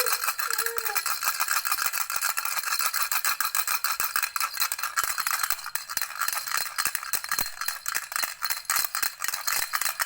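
Baby's rattle toy shaken continuously: a fast, unbroken clatter of small hard clicks.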